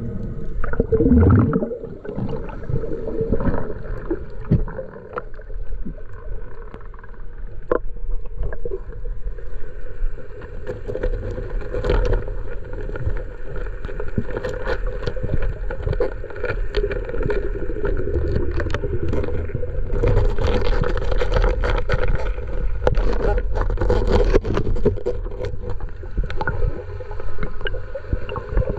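Underwater sound through a submerged camera housing: a steady muffled hum with a droning tone and a low rumble, dotted with sharp clicks and knocks. The rumble grows louder in the second half.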